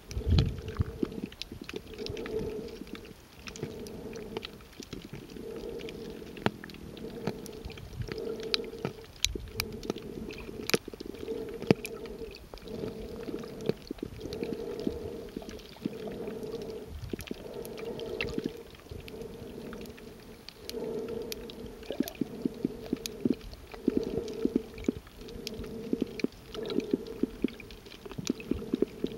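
Muffled underwater sound picked up by a waterproof camera held below the surface while snorkeling: a low rushing that swells and fades about every second and a half, with scattered sharp clicks and crackles and a thump right at the start.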